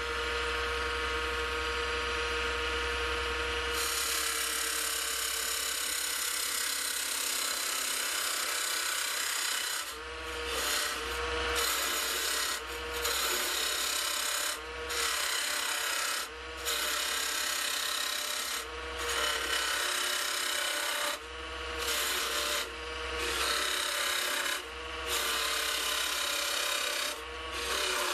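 MasterCraft 1/3 hp mini wood lathe running with a steady motor hum while a King Canada parting (cutoff) tool cuts into the spinning wood. The scraping hiss of the cut starts about four seconds in. From about ten seconds in it comes in repeated strokes every couple of seconds, with short breaks between.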